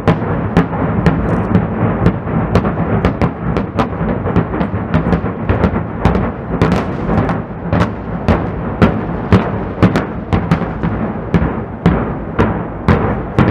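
A rapid string of rock-blasting charges detonating on a mountain face, heard from far away: irregular sharp reports, about three a second, over a continuous rolling rumble.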